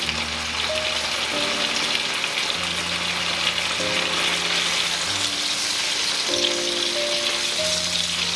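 Smoked pork chops sizzling steadily as they fry in melted butter in a skillet on high heat, under soft background music of held notes.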